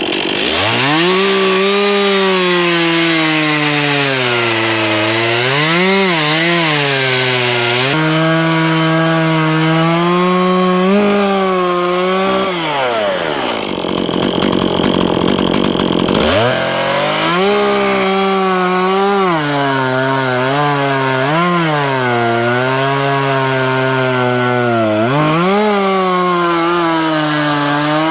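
Two-stroke chainsaw bucking logs at full throttle, its engine note sagging and recovering as the chain bites into the wood. About halfway through the throttle is let off and the pitch falls away for a few seconds, then the saw revs up again and goes back into the cut.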